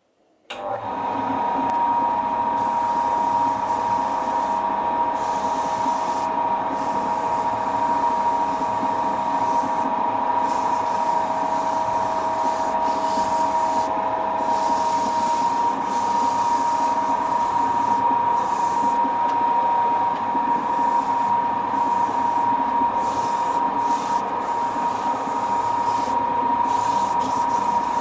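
Wood lathe starting up about half a second in and then running steadily with a high whine, a lower whine dropping out about halfway. A pad rubs on the spinning wooden workpiece as finish is applied.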